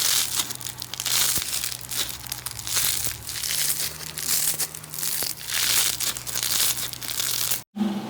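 Crunchy slime being squeezed and pressed by hand, crackling and crinkling in repeated pushes about once a second, cut off abruptly just before the end.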